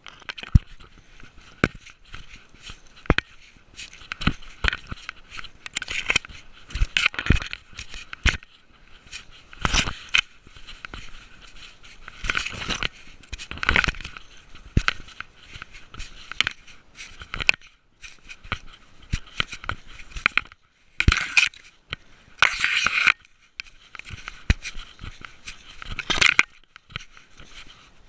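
Dry leaves and twigs crunching, crackling and scraping as a cat pushes through leaf litter and brush. It comes in irregular bursts with sharp clicks, louder twice near the end.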